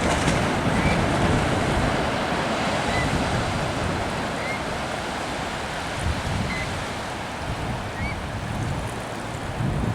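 Pacific surf breaking and washing up the beach, a steady rush that swells in the first few seconds and then eases, with wind gusting on the microphone. A faint short high chirp comes every second or two.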